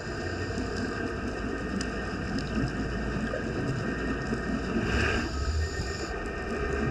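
Muffled underwater noise picked up through a GoPro housing: a steady low rumble and hiss, with a brief louder rush about five seconds in.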